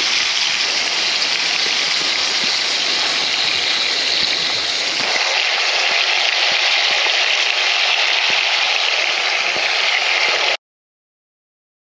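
Sausage slices and cheese frying in a cast-iron skillet on a camp stove: a loud, steady sizzle that cuts off suddenly near the end.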